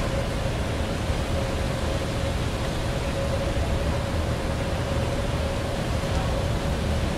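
Steady machine hum with a constant mid-pitched whine, over a rumbling outdoor background noise.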